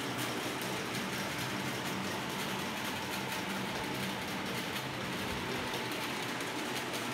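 Steady mechanical hum and hiss with a thin, constant whine, unchanging throughout.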